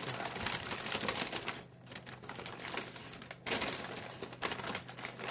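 Brown kraft wrapping paper crinkling and rustling as hands unwrap a parcel, with brief lulls about two and three and a half seconds in.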